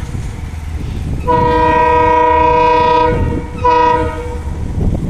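Multi-tone air horn of a WDP-4D diesel locomotive sounding one long blast of about two seconds, starting a little over a second in, then a short blast, over the steady low rumble of the express train running through the station.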